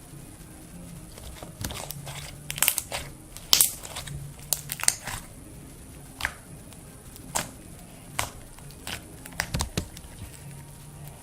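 Homemade glue slime being squished and pulled by hand, giving irregular sticky pops and clicks, some of them sharp and loud, clustered in the first half.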